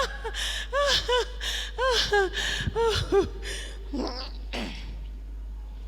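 A woman's high-pitched wordless cries: about ten short yelps, each rising and falling in pitch, in quick succession with breathy gasps between, dying away after about three seconds.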